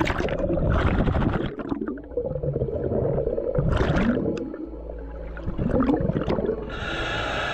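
A diver breathing through a scuba regulator underwater: bubbling, gurgling exhaled bubbles, with a short hiss of inhalation about halfway through and another near the end.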